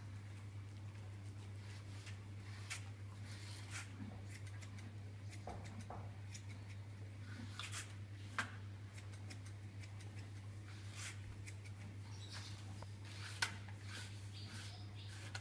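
Quiet room tone: a steady low hum with a few scattered sharp clicks and knocks.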